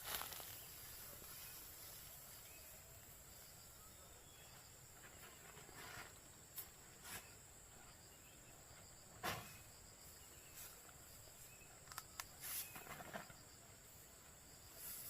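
Faint outdoor ambience near silence: a steady high insect drone, with a few scattered soft taps and rustles.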